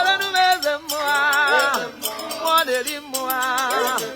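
Music: a voice sings held notes with a wide wavering vibrato, without clear words, over a steady shaker rhythm.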